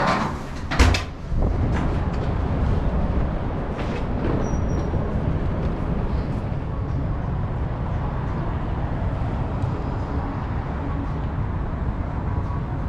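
A heavy glass entrance door clunking twice as it is pushed open, then steady city street noise of passing traffic.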